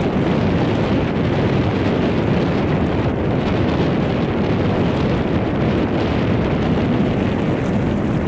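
Boeing 747 airliner on final approach, its four jet engines giving a steady, even rumble, mixed with wind on the microphone.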